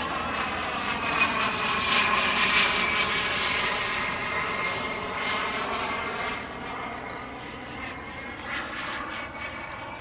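A Jet-Italia Speed 12 model jet turbine whines as the RC jet flies overhead. It is loudest about two seconds in, then its pitch drops slightly and it fades as the plane draws away.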